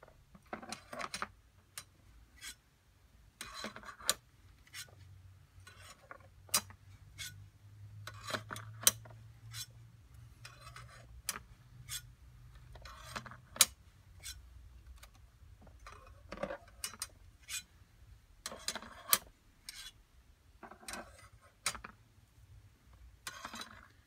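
Flat plates being dropped one at a time into two hanging plastic bins, giving sharp clacks and clatters every second or two. A faint low hum runs underneath.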